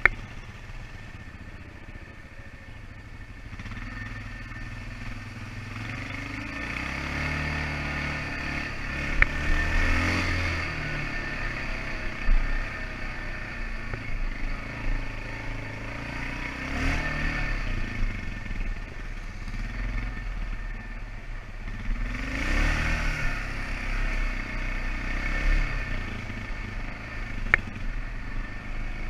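ATV engine running on the trail, revving up and easing off in repeated surges as the quad works along, with two brief sharp knocks, one about nine seconds in and one near the end.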